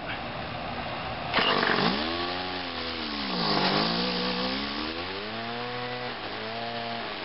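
Small two-stroke engine of a gas string trimmer catching about a second and a half in, then revving up and down several times.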